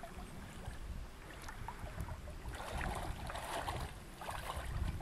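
Shallow lake water sloshing and splashing around a person's legs as she wades toward shore, the irregular splashes of her steps growing louder about halfway through.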